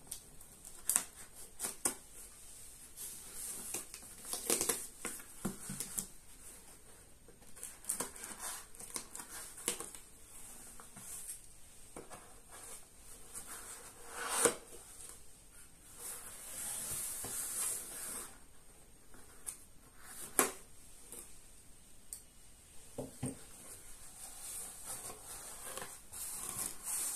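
A cardboard shipping box being opened by hand: a blade slitting the packing tape, tape tearing, and the cardboard flaps being folded back, with scattered taps and knocks and a longer hissing stretch of tearing partway through.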